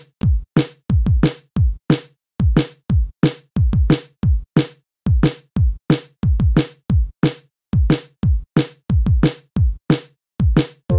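Background electronic music: a steady drum-machine beat of deep kick drums that drop in pitch, with sharp snare hits.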